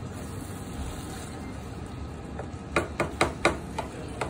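A spatula stirring chicken in a thick tomato sauce in a skillet, over a faint sizzle. From about halfway in, a quick run of sharp knocks as the spatula strikes the pan.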